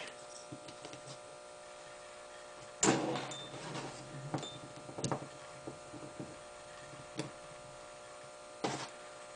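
Small metal gun parts handled on a workbench: a few light clicks and a short clatter about three seconds in, as the magazine release is set into a Ruger 10/22 trigger pack. A steady electrical hum runs underneath.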